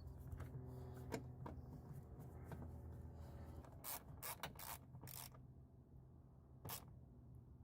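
Faint clicking and rubbing of a hand tool driving a door panel screw into a truck door trim panel, over a steady low hum.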